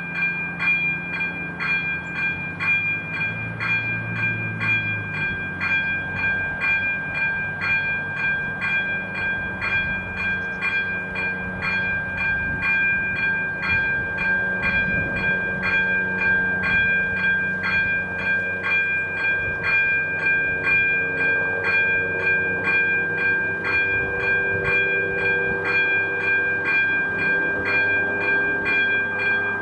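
Electronic level-crossing warning bell ringing in an even rhythm of about two strokes a second while the AŽD 97 warning lights are active, over the rumble of a train on the crossing.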